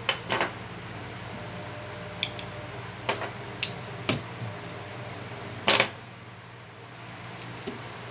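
Small metal tools and phone parts clicking and tapping at irregular intervals during iPhone 6s Plus logic board work, the loudest a sharp double click a little before six seconds in. A steady low hum lies under it.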